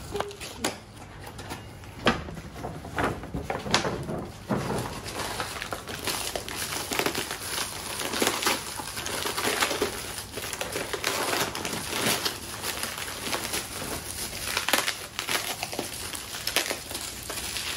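Gift packaging being handled and unwrapped by hand: crinkly plastic and paper wrapping rustling and crackling. Scattered separate crackles at first, turning into dense, continuous crinkling about six seconds in.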